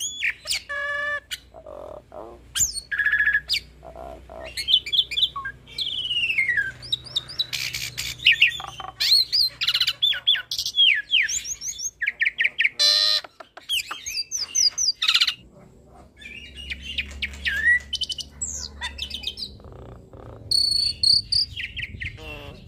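Hybrid starling (jalak nias × Asian pied starling cross) singing a long, varied song of whistles, falling slurs, sharp chirps and fast rattling trills. It is packed with fill-in phrases mimicked from other birds.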